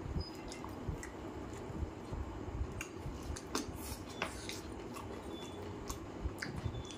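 A person eating chicken curry by hand: chewing with wet lip smacks, and squelching as fingers pull apart saucy chicken pieces. Short sharp smacking clicks come at irregular moments.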